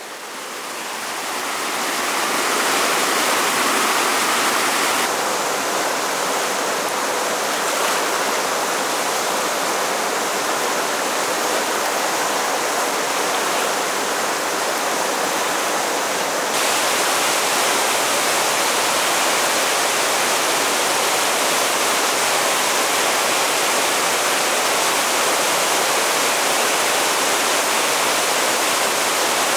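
Rushing whitewater of a fast mountain river running over rocks: a loud, steady rush with no pitch, fading in over the first couple of seconds. Its tone shifts slightly about five seconds in and again about sixteen seconds in.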